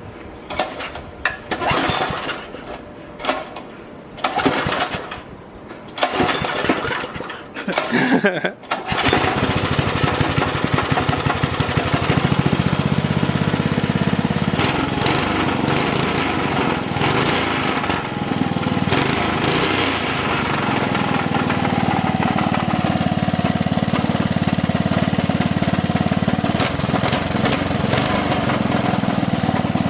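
Briggs & Stratton 5 hp flathead single-cylinder engine giving short, separate bursts for the first several seconds, then catching about nine seconds in and running steadily. It runs only because it has been given an oversized main jet with the mixture screw turned almost all the way in, a stopgap for a carburetor that needs a rebuild.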